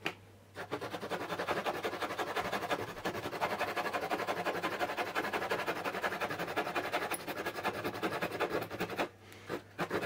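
Small saw blade of a pocket multi-tool sawing through pallet wood in quick, short back-and-forth strokes, an even rasping that starts about half a second in and stops about a second before the end.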